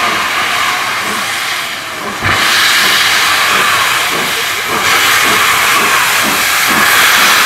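ČSD class 556.0 steam locomotive hissing loudly as steam blows from its cylinder drain cocks while it starts to move. About two seconds in there is a low thump and the sound grows louder, followed by a slow rhythmic beating under the hiss.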